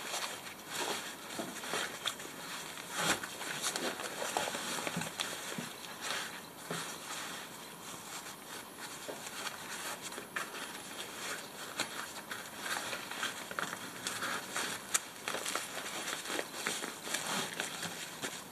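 Fabric socket tool roll being folded and rolled up by hand: irregular rustling and crackling with small clicks and knocks, likely from the sockets inside shifting against each other.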